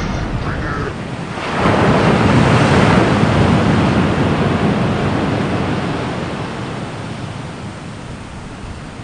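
A rushing noise with no voice or music in it, which swells suddenly about a second and a half in and then slowly dies away.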